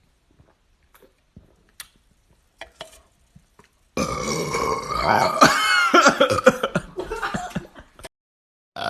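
A person's long, loud burp, starting abruptly about four seconds in and lasting about four seconds, its pitch wavering before it cuts off, with a few faint clicks before it.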